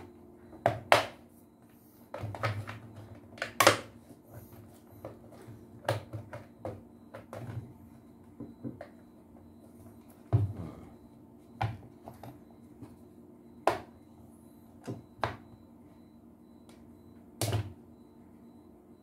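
Grey plastic vacuum cleaner housing being handled and fitted together: a dozen or so scattered clicks and knocks of plastic parts, over a faint steady hum.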